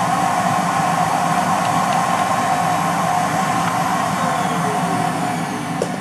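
Household vacuum cleaner running steadily with a high whine as its nozzle sucks dust from a robot vacuum's clogged sensors. Near the end it is switched off and the whine falls away as the motor spins down.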